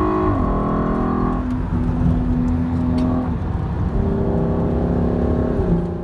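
Audi TT Mk2's engine revving hard under acceleration, heard inside the cabin, its pitch dropping at a gear change shortly after the start and again near the end, over steady road rumble. No wind whistle comes from the freshly raised frameless door window.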